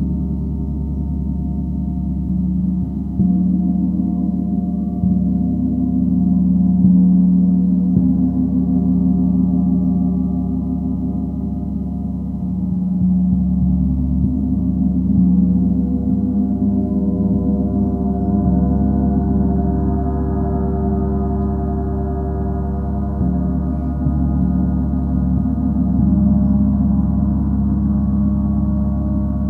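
Gong played continuously for a sound bath: a sustained wash of overlapping low tones that swells and eases every few seconds.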